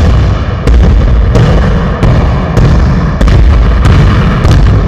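Basketball dribbled hard on a wooden gym floor: loud booming bounces about every two-thirds of a second.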